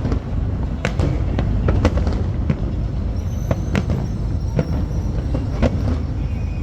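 Fireworks display going off: irregular sharp bangs and cracks, about one or two a second, over a steady low rumble.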